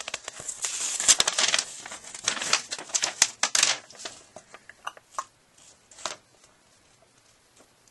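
Plastic shipping mailer crinkling and rustling as hands dig through it, dense and busy for about four seconds, then a few scattered rustles and taps that die away.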